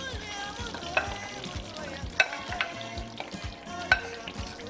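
A spoon stirring a pot of simmering sauce, with sizzling underneath and a few sharp clinks of the spoon against the pot, about four times.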